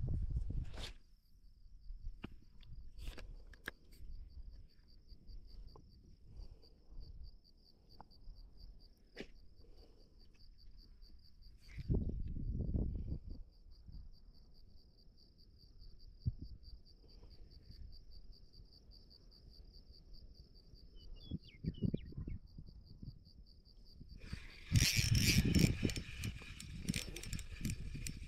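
Insects trilling steadily at a high pitch, with occasional low bumps. About three-quarters of the way through, a louder burst of rustling noise covers the trill.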